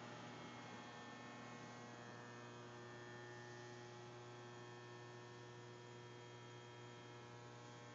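Faint, steady electrical mains hum: a low buzz with many overtones, unchanging throughout.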